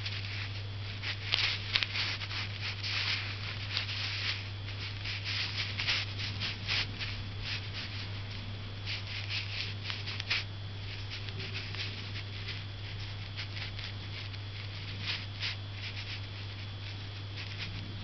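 Chinese painting brush loaded with ink scratching and rustling across paper in short, irregular strokes, busiest in the first ten seconds and sparser after, over a steady low hum.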